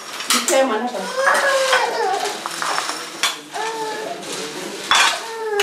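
Plates and metal basins clinking and clattering, with several sharp knocks, as food is dished out onto plates, while people talk.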